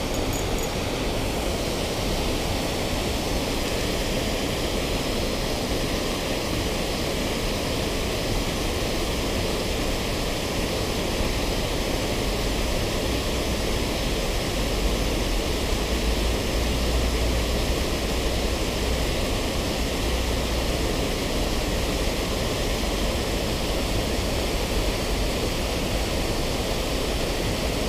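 Steady rush of water pouring over a low concrete weir into the river.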